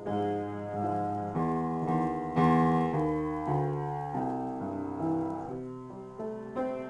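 Upright piano being played in an improvised passage: chords and notes struck and left to ring, with the loudest chord about two and a half seconds in.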